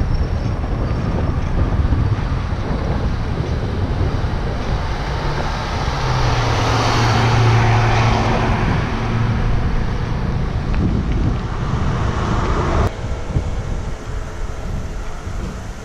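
Wind buffeting the microphone, with a motor vehicle passing: its low engine hum and tyre noise swell and fade about halfway through. The level drops suddenly near the end.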